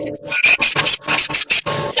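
Rapid, irregular scraping strokes, several a second.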